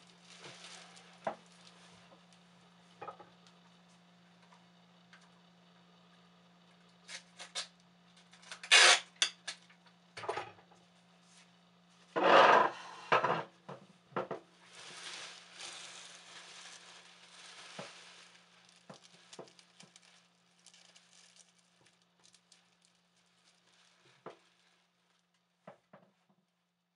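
Irregular clatter, knocks and rubbing of objects being handled, loudest about nine and twelve seconds in, over a steady low hum.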